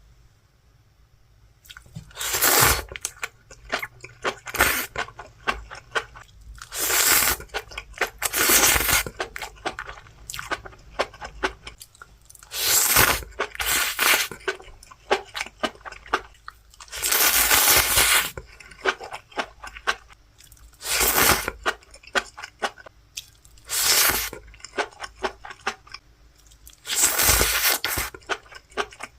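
Someone chewing enoki mushrooms with loud crunching, in repeated bouts every couple of seconds starting about two seconds in, with smaller wet clicks between.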